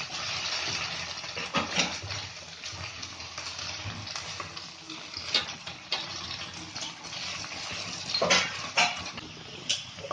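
Julienned potatoes frying in oil in a kadai, a steady sizzle, while a silicone spatula stirs them, scraping and knocking against the pan several times, most clearly near the end. The potatoes are already well fried.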